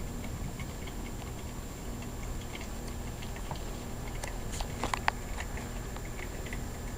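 Light rain dripping: scattered small ticks and taps, a few louder ones bunched together about four to five seconds in, over a steady low hum.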